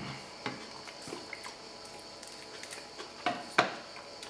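A metal spoon clinking against a stone-effect nonstick frying pan of beans: a few light taps, then two sharper clinks near the end as the spoon is set down in the pan.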